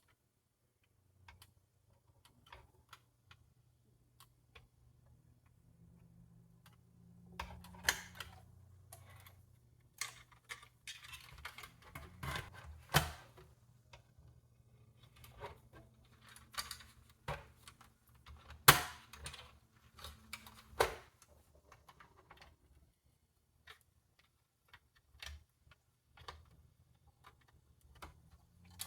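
Hands handling a small desktop computer and its parts: scattered light clicks, taps and knocks of plastic and metal, with a few sharper knocks in the second half.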